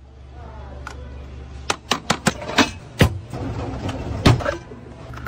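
A run of sharp metal clanks and knocks as a quart paint can is set into a paint shaker and clamped in, loudest near the end of the run.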